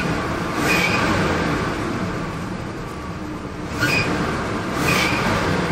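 The 1973 Cadillac Fleetwood Brougham's 472 V8 is heard from inside the cabin. It is revved a couple of times, swelling near the start and again around four to five seconds in, with a light pulley squeak chirping on the revs. It is a rather quiet, controlled-sounding V8 with no pronounced burble.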